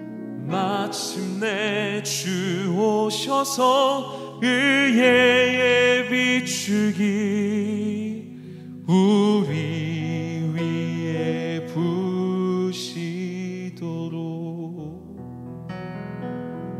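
Worship song: a solo voice singing phrases with wide vibrato over sustained keyboard chords, the voice dropping out a couple of seconds before the end and leaving the keyboard alone.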